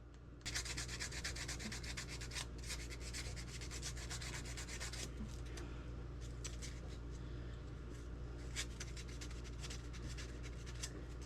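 Hand scraping and rubbing old candle wax off a lantern's plug: a continuous dry scratching made of many quick strokes. It starts about half a second in and is heaviest for the first five seconds.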